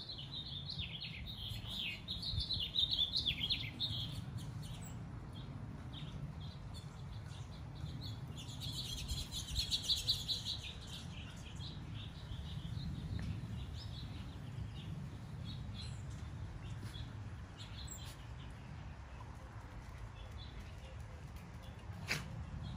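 Small birds chirping in quick twittering series, in two bouts: near the start and again around ten seconds in, over a steady low background hum. A single sharp click comes near the end.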